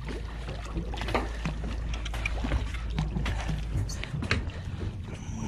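Hooked bluefish splashing at the surface beside a boat, with short splashy clicks over a steady low rumble that drops away about four seconds in.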